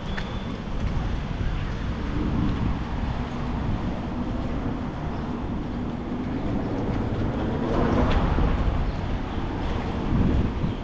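Traffic on a wet town street: a vehicle's engine running for a few seconds, then a vehicle passing about eight seconds in, over low wind noise on the microphone.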